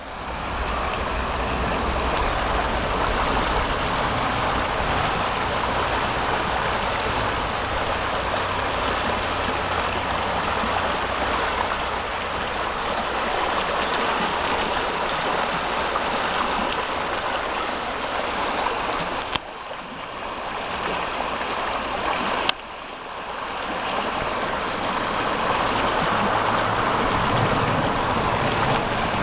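Steady rushing of flowing river water with a low rumble underneath. Twice, about two-thirds through, the sound drops off suddenly with a click and then builds back.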